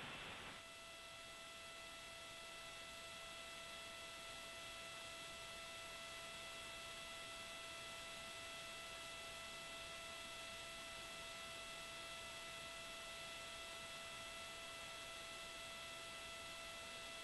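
Faint steady hiss with a thin, unchanging electrical hum made of several high tones: the open line of the launch commentary audio loop between calls.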